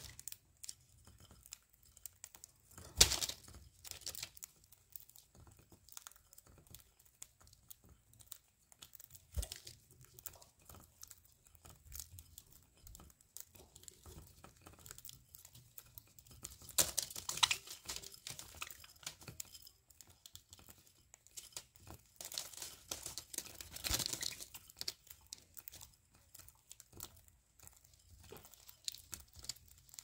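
Budgies cracking and hulling seed at a feeding dish: an irregular run of small cracks and clicks, with the newspaper under them crinkling and rustling as they shuffle about. There is a sharper click about three seconds in, and busier stretches later on.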